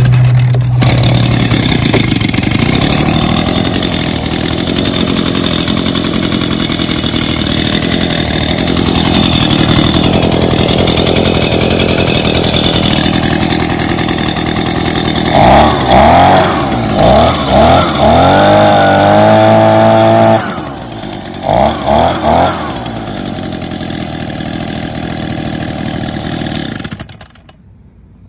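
Echo PB-265L leaf blower's small two-stroke engine running after the primer bulb replacement, which shows the repair worked. About halfway through it is revved in several quick blips and a few seconds held at high throttle, then drops back to idle and shuts off about a second before the end.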